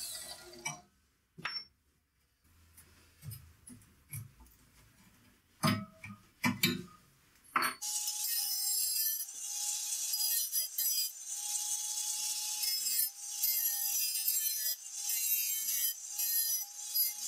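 Sheet steel clinking and knocking as it is handled and clamped. About eight seconds in, an angle grinder starts cutting into the clamped steel with a steady whine and a hiss.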